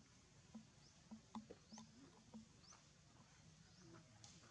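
Near silence: faint outdoor background with a few faint short chirps and soft clicks.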